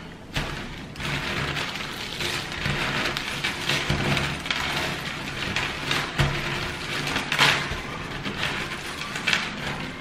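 Cardboard jigsaw puzzle pieces rattling and clattering as hands crumble up an assembled puzzle and shuffle the loose pieces across a wooden tabletop, with a few louder clicks in the second half.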